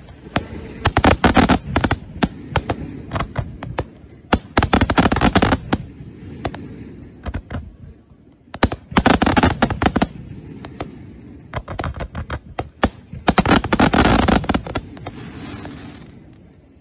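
Aerial fireworks with a crackling effect: four bursts of rapid crackling pops, each lasting a second or so and a few seconds apart, with scattered single pops in between.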